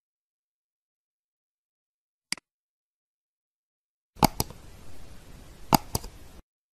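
A single computer mouse click, then about two seconds later a short subscribe-button overlay sound effect: four sharp clicks, two near its start and two near its end, over a faint hiss that starts and stops abruptly.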